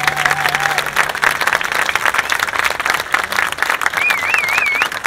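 Concert audience applauding, with dense, steady clapping. A low held note stops about a second and a half in, and a brief wavering high-pitched tone rises over the clapping near the end.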